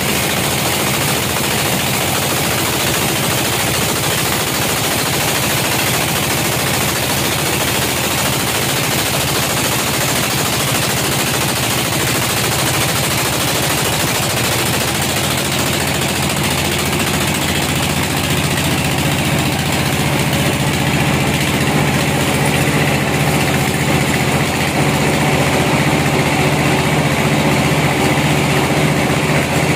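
Band sawmill running and sawing a log into slabs: a steady low drone with a hissing, rasping layer on top, the drone growing louder in the second half.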